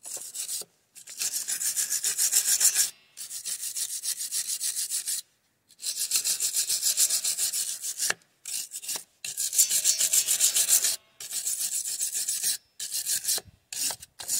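Hand wire brush scrubbing a fresh MIG weld on a motorcycle's steel frame at the kickstand bracket, cleaning it up before paint. Rapid scratchy back-and-forth strokes come in bursts of a second or two with short pauses between.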